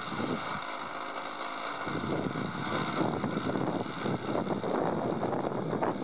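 Hand-held electric starter spinning a model aircraft's small engine, which does not catch. A steady whirring that starts abruptly and thickens about two seconds in.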